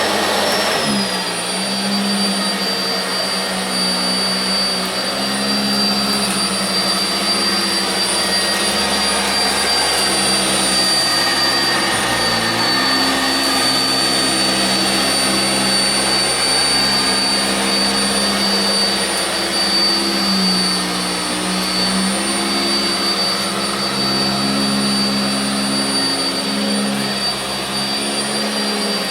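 Sanitaire SC679j upright vacuum cleaner coming up to speed at the start, then running steadily on carpet with a high motor whine over a low rumble that shifts as it is pushed back and forth.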